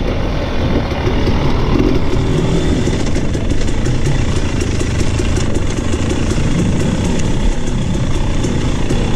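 Off-road motorcycle engine running as the dirt bike is ridden along a rooty trail, its note shifting with the throttle. A steady run of small knocks and rattles comes from the bike over the bumps.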